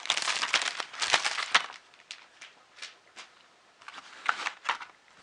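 Packaging crinkling and rustling as it is handled: a dense crackle for about the first second and a half, then a few scattered light clicks and a second short burst of crinkling near the end.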